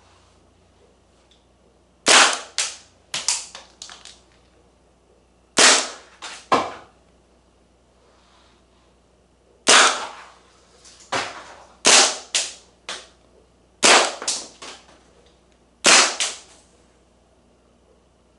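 Marzen Walther PPK gas-blowback airsoft pistol firing: sharp pops in quick strings of two to four shots, with pauses of a second or two between strings.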